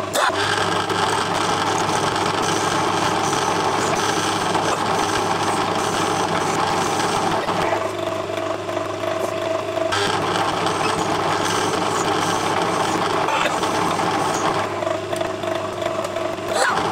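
Metal lathe running: a steady motor hum and whine with the chuck spinning, while a carbide-insert tool faces the end of a small workpiece held in the chuck. The sound changes abruptly about ten seconds in and again near the end.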